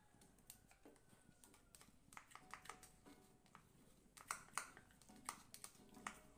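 Wooden spatula clicking and scraping against an aluminium wok as a thick sauce is stirred, in a quick irregular run of light taps, with two sharper knocks a little past the middle. Faint background music under it.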